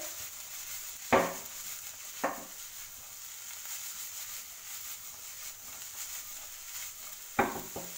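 Chicken and vegetables sizzling steadily in a wok over high heat, with three sharp knocks as the pan is shaken and tossed on the burner: the loudest about a second in, another near two seconds, and one near the end.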